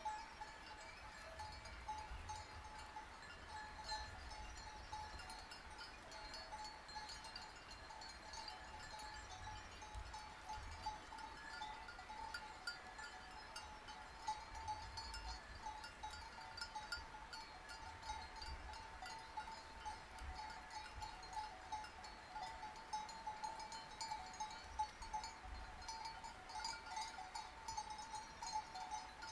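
Sheep bells clanking and ringing irregularly, many small overlapping clanks over a steady ringing tone, as from a grazing flock.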